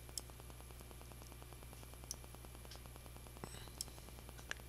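A few faint, sharp computer mouse clicks, about five scattered through, over a steady low electrical hum on the recording.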